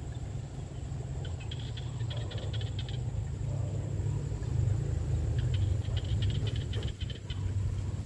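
Small rice-paddy frogs (khiat) calling in two chorus bursts of rapid clicking notes, about a second in and again past halfway, over a steady low rumble.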